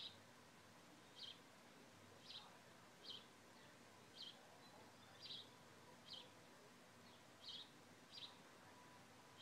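A bird giving short, high chirps, about one a second, faint over a quiet steady hiss.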